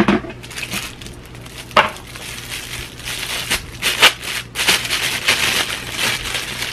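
Clear plastic packaging and bubble wrap crinkling and crackling as a camera lens is unwrapped, with a couple of sharp clicks in the first two seconds and denser crackling from about the middle on.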